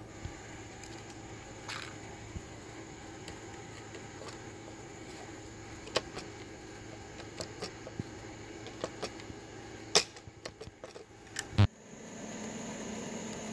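Hand pop-rivet tool setting aluminium pop rivets: light clicks as the handles are worked, then two sharp snaps about a second and a half apart as the rivet mandrels break off.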